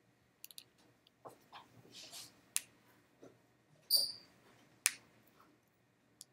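Scattered small clicks and taps, with one short high squeak about four seconds in.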